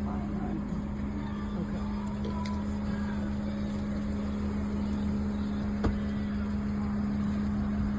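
A steady low mechanical hum with an even tone, and a single sharp click about six seconds in.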